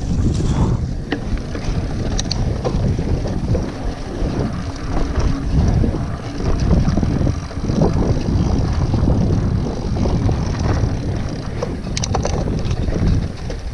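Wind buffeting the microphone of a camera riding along on a mountain bike in motion, a dense steady rumble. A few sharp clicks and rattles from the bike come through it, two near the end.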